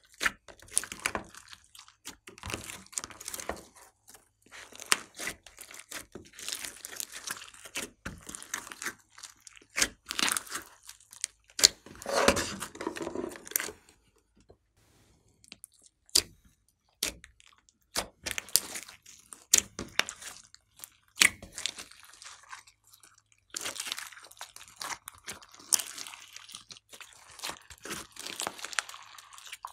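Hands kneading and squeezing a large mass of beaded slime, giving irregular wet squelches and crackling clicks. Around the middle it goes quieter, with only a few scattered clicks, before the squishing starts again.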